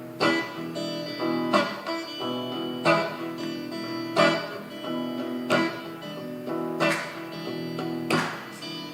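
Guitar strumming the opening chords of a song, with a strong strum about every second and a half and the chords ringing in between.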